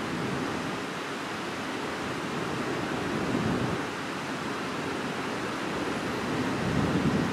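Water pouring steadily out of a pond through its outlet, a continuous rush.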